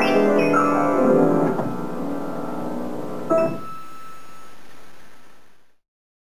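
Grand piano playing the closing chords of a piece, the notes ringing on and dying away. One last note is struck about three seconds in, and the sound then fades out before the end.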